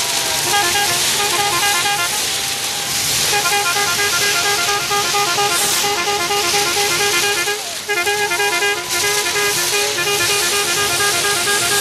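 A massed barrage of homemade Easter rockets flying in continuous streams, a steady dense hiss, with a fast repeating tone pulsing over it most of the time, broken off briefly twice, and a gliding whistle a little after eight seconds.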